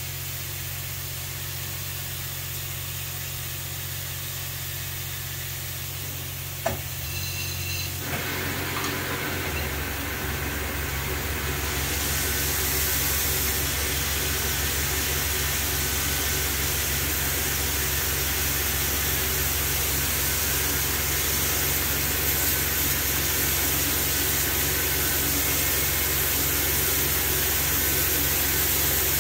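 A low steady hum and a single click, then the Harrison 10-AA lathe's spindle running up and a Bijur SprayMist mist-coolant nozzle hissing with shop air and coolant. The hiss grows stronger a few seconds later and then holds steady.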